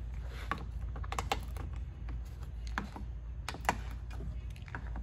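Irregular sharp plastic clicks and snaps as a flat-blade screwdriver pries plastic push-pin retainers out of a car's underbody splash shield.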